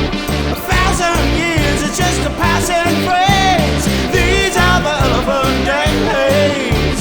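Indie rock music: a full band with a stepping bass line and steady drums under a bending, wavering melody line.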